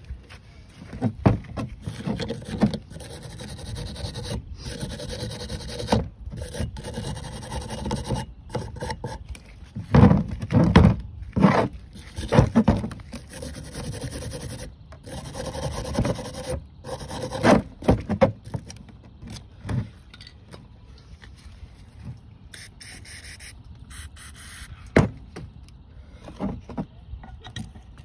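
Brake caliper parts being scrubbed clean after a degreaser spray: irregular rubbing and scraping, with a few sharp knocks from the parts being handled, mostly around the middle and one near the end.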